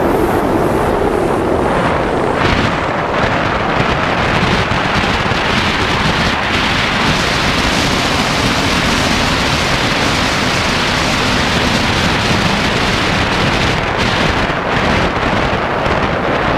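Wind buffeting the microphone and water rushing past a jet ski under way, with its engine running underneath.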